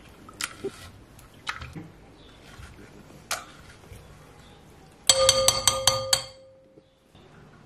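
Knife and masher working watermelon pulp in a glass bowl: a few single clinks against the glass, then about five seconds in a quick run of taps that sets the glass bowl ringing, the ring fading away.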